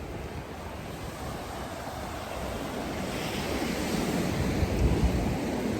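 Ocean surf breaking and washing up on the beach, a steady wash of noise that swells and is loudest about four to five seconds in, with wind rumbling on the microphone.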